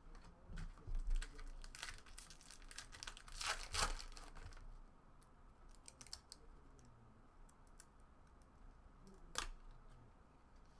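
Trading cards being handled and peeled apart where they have stuck together, a crinkly rustling with clusters of clicks in the first four seconds or so. Quieter small clicks follow, then one sharp click about nine seconds in.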